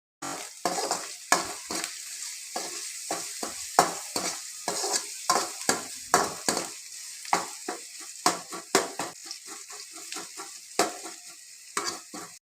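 Food sizzling in a pan for upma while a spoon stirs it, scraping and knocking against the pan about three times a second over a steady hiss.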